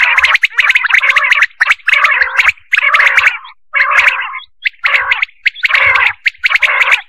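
Quail calling in a series of about seven short bursts, each a rapid run of pulsed notes, with brief gaps between them. It is a recorded quail call of the kind played to lure quail for hunting.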